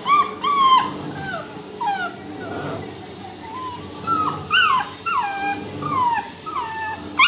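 Labrador puppy whining again and again, a string of short high whines that each fall in pitch, begging for its food.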